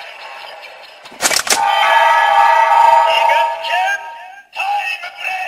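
Electronic sound of the Kamen Rider OOO Tajadol Combo Ridewatch toy: a quick run of sharp clicks about a second in, then a synthesized sung chant with a long held note that fades out after about four seconds, and a short sung phrase near the end.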